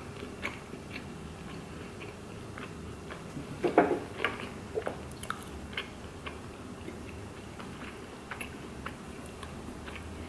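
Close-miked mouth sounds of a person chewing a mouthful of burrito: soft wet clicks and smacks scattered throughout, with a louder burst about four seconds in.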